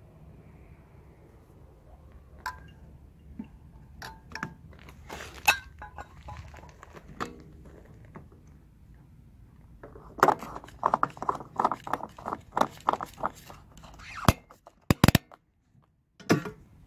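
Car fuel cap screwed onto the filler neck, its ratchet clicking rapidly for several seconds as it tightens. A few sharp knocks follow near the end as the fuel flap is pushed shut. Lighter clinks of handling come first.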